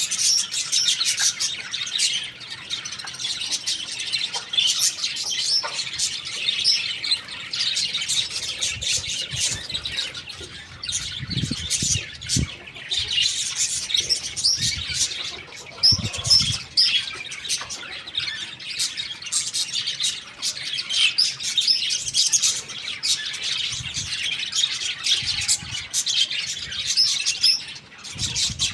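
Young chickens chirping continuously in many short high notes, with a few soft low thuds around the middle.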